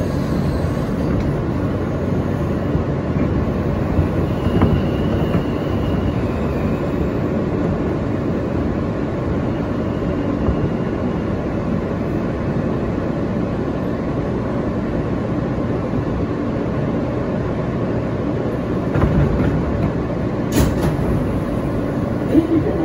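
R160A subway car running between stations, heard on board: a steady rumble of wheels on rail, with a faint high wheel squeal about five seconds in and a sharp knock near the end.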